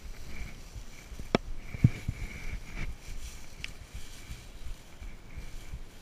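Dry raffia grass on camo netting rustling as it is carried and handled, with low irregular handling rumble and two sharp clicks a little over a second in, the second the louder.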